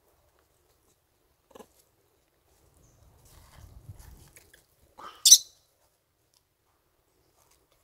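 Long-tailed macaque giving one brief, high-pitched squeal about five seconds in, the loudest sound here. A fainter short call comes earlier, and there is some soft low noise of movement.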